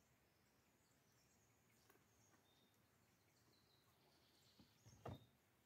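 Near silence with faint, scattered bird chirps, and one soft knock near the end.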